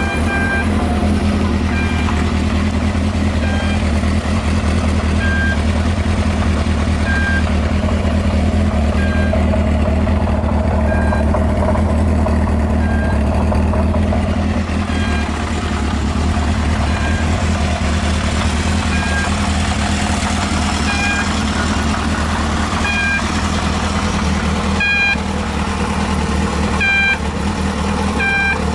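A 1978 Kawasaki Z650's air-cooled inline-four engine running steadily at idle. The seller states that it runs with no abnormal noises. A short electronic beep repeats every second and a half to two seconds over it.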